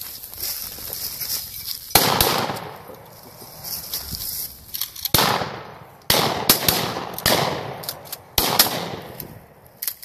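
A string of shotgun shots, about five, spaced a second or more apart, each echoing away. The hunters are shooting at a flushed upland game bird in flight.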